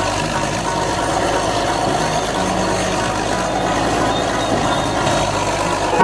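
Steady vehicle engine noise, a continuous even rumble and hiss with no clear pitch changes.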